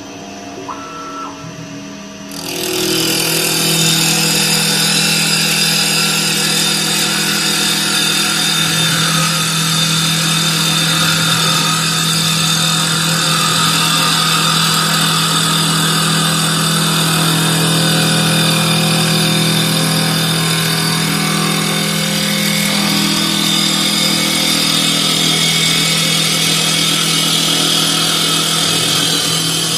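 CNC wood lathe starting up about two and a half seconds in and turning a wooden blank. It gives a steady spindle-motor hum with a loud, even hiss of the cutting tool shaving the wood. Before that, only quieter machine sounds.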